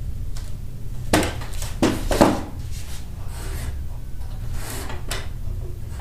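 Wooden stepladder being handled and set down: knocks and scrapes of wood on wood, loudest around two seconds in, with a single sharp knock near the end.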